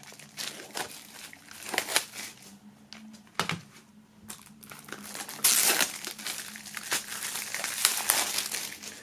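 Cellophane shrink wrap crinkling as it is peeled off plastic CD jewel cases: scattered rustles at first, then denser, louder crinkling from a little past halfway. A short knock about a third of the way in.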